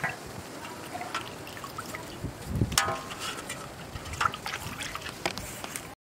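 Water sloshing and splashing as hands wash pieces of cut catfish in a steel bowl, with small splashes and drips. The sound cuts off abruptly near the end.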